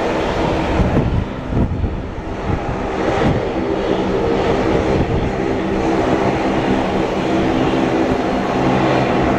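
Steady rumble of an Airbus A321's CFM56 jet engines as the airliner rolls out and slows on the runway after touchdown. Wind buffets the microphone briefly about one to two seconds in.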